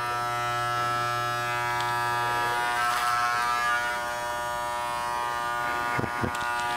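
Corded electric hair clippers running with a steady buzz, cutting a mannequin's hair over a comb.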